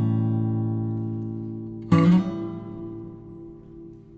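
Background music of strummed acoustic guitar: a chord rings and fades, and another chord is strummed about two seconds in and dies away.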